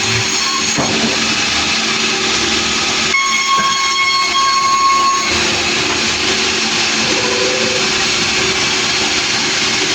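A sawmill running: loud, steady machine noise with a high whine that changes pitch about three seconds in and fades about five seconds in.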